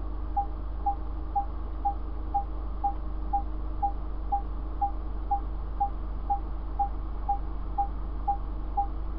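Short, high electronic pips repeating evenly about twice a second, like a ticking clock effect, over a steady low hum.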